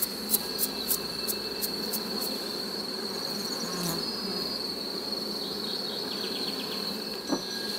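Honeybees buzzing around a drone frame as a bee brush sweeps them off the comb in short strokes, about three a second, for the first two seconds. A steady high-pitched tone runs underneath.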